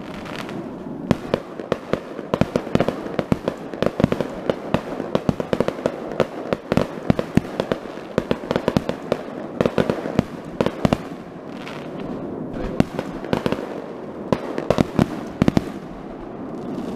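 Fireworks going off in a long, rapid, irregular run of cracks and bangs, several a second, over a steady crackle.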